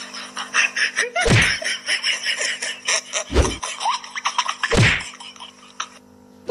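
Four heavy whacks spaced about one and a half to two seconds apart, each a sharp hit with a deep tail, over a busy background of rapid small clicks and a faint steady hum.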